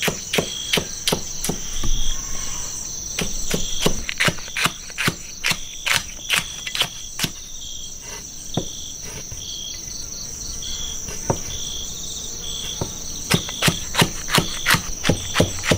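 Kitchen knife slicing chili peppers on a chopping board: a run of quick, irregular knocks that thins out for a few seconds midway, then picks up again near the end. Insects chirp steadily behind, a constant high whine with short repeated chirps over it.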